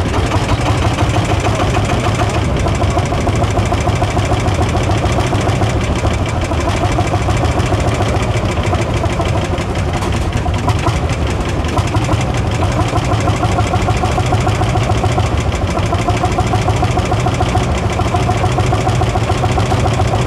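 Lanz Bulldog tractor's single-cylinder two-stroke hot-bulb engine idling with a steady, even beat.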